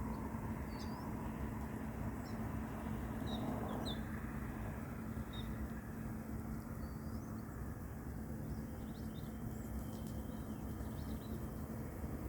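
Steady low rumble with a constant hum, with faint, scattered bird chirps throughout.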